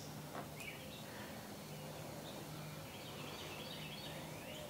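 Quiet outdoor ambience: a few faint bird chirps over a low steady hum and background hiss.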